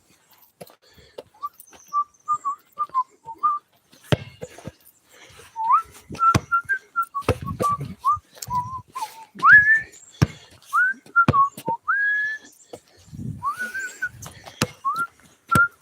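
A person whistling a wandering tune in short notes with some upward slides, starting about a second in, over irregular knocks and bumps.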